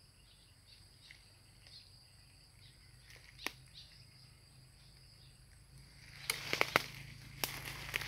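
Faint steady high insect chirring, with one sharp tick about three and a half seconds in. From about six seconds in come rustling and crackling of cassava leaves and dry leaf litter, with several sharp snaps, as someone moves through the plants.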